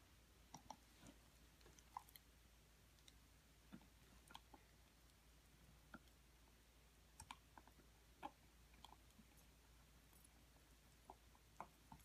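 Faint, scattered clicks at irregular intervals as a red heeler gnaws on a bone-and-ball chew toy, her teeth working against the toy.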